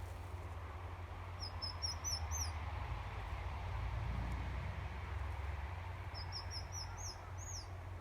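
A small bird chirping in two quick high-pitched series of about six short notes each, the first about a second and a half in and the second about six seconds in, each ending in a longer swooping note. A steady low rumble lies underneath.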